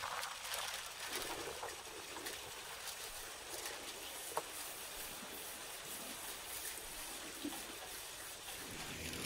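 Baking paper rustling and crinkling as it is unrolled and smoothed flat by hand over a large metal pan, a steady papery hiss with small crackles.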